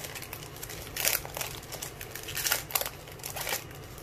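Foil wrapper of a baseball card pack crinkling as it is torn open and the cards are pulled out. There are several short crackly spells, the loudest about a second in and again between two and a half and three and a half seconds.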